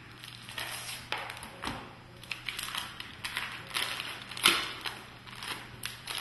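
Handling noise: an irregular run of sharp clicks, taps and crinkles, as of objects being picked up and moved, over a faint steady hum.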